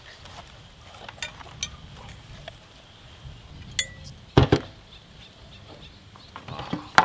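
Metal skewer rods clinking and knocking as they are handled and worked out of whole grilled chickens, with a brief metallic ring a little before four seconds in and a louder double knock just after.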